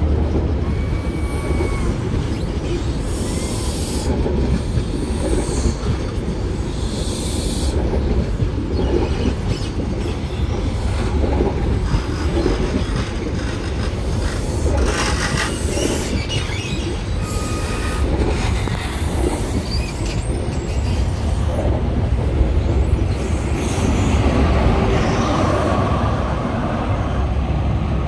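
CrossCountry High Speed Train (Class 43 power cars with Mark 3 coaches) rolling past along the platform: a steady low rumble with wheel-and-rail clatter and a few short, thin squeals from the wheels.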